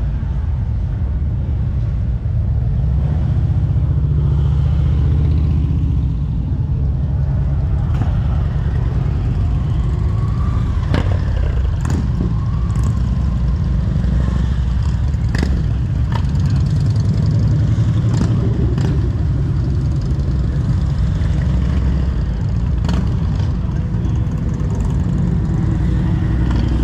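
Steady low rumble of motorcycle engines running and riding along the street, with a few sharp clicks scattered through the middle.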